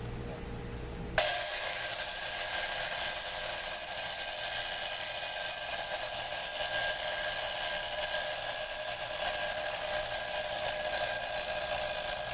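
Westclox twin bell wind-up alarm clock going off: its hammer rattles rapidly between the two metal bells in a loud, continuous ring that starts suddenly about a second in.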